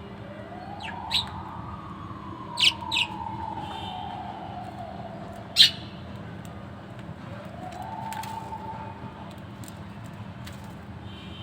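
Budgerigars giving a few short, sharp chirps: one about a second in, two close together near three seconds and the loudest near the middle. Behind them a slow gliding tone rises, falls gradually, then rises and holds again later, over a steady low hum.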